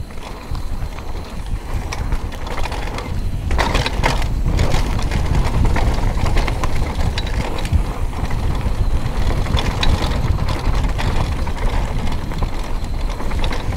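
Downhill mountain bike rolling fast down a dirt trail: tyres on the dirt with a low rumble and the bike rattling over bumps, with a louder burst of noise about four seconds in.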